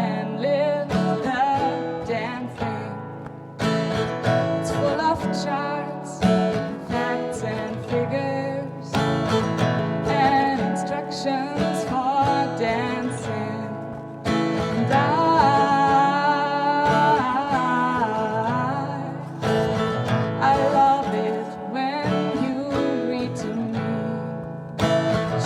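A song with a voice singing over acoustic guitar accompaniment.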